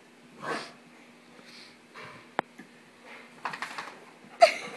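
White boxer dog at rough play: a few short breathy puffs, a sharp click, quick scuffles, and a loud thump near the end.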